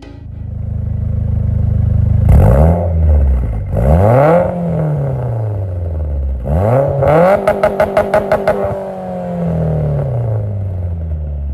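Car engine accelerating hard through the gears: the pitch climbs, drops at each upshift about two and four seconds in, then climbs again. Near the middle comes a fast string of sharp pops, after which the engine note falls steadily as the car slows.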